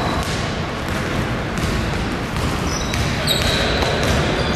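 Ball thuds and running footsteps on a gym's wooden floor, echoing in a large sports hall, with short squeaks of sneakers about three seconds in and again near the end.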